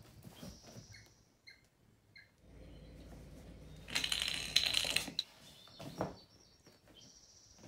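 Kitten scuffling with a stuffed toy: rustling and scratching, loudest for about a second around the middle.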